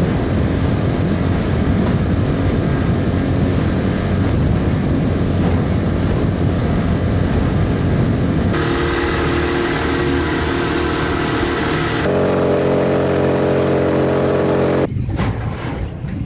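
A boat's motor running steadily. Its note changes abruptly twice, and it drops away suddenly near the end.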